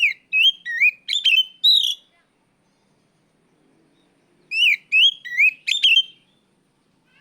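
Oriental magpie-robin (kacer) giving loud, clear whistled calls: two phrases of about five swooping notes each, the second coming a couple of seconds after the first. This is the 'ngeplong' challenge call with which the bird summons a rival.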